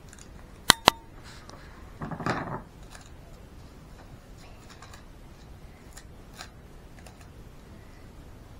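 Two sharp snips of scissors cutting through sticky tape, close together about a second in, followed shortly after by a brief crinkly rustle of tape and baking paper being handled.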